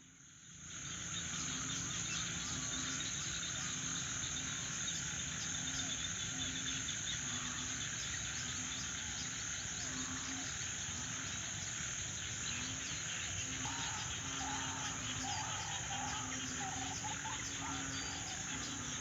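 Insect chorus after heavy rain: a steady, high, shrill drone, with a low call repeated about once a second beneath it. About two-thirds of the way in, a run of short mid-pitched calls joins in. The sound fades in over the first second.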